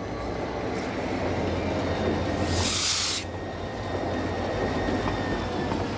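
Diesel switcher locomotive running with a steady low hum as it slowly tows a dead steam locomotive, with rail and wheel noise. A short hiss of air about two and a half seconds in.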